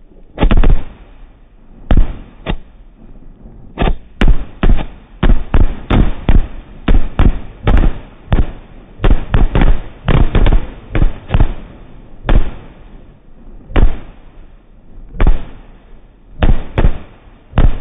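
Canister salute shells bursting overhead: about thirty sharp, loud bangs in quick irregular succession, packed close together through the middle and spaced further apart near the end, each with a short echoing tail.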